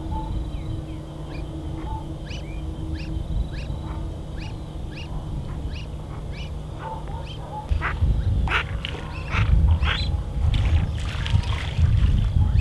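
Brazilian teal calling: a run of short, high, sharp notes about two a second. They grow louder and more crowded over a low rumble of noise in the second half.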